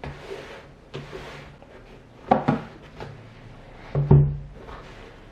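Cardboard packaging being handled: sliding and rustling, then two hollow knocks, one a little over two seconds in and a louder one about four seconds in.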